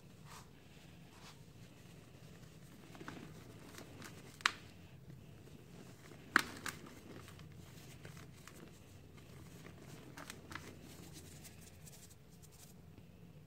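Dry, hardened cement clumps crumbling and cracking in the hands, with gritty powder and small bits falling back into a bucket of cement powder. There are a few sharp snaps as chunks break, the loudest two about four and a half and six and a half seconds in.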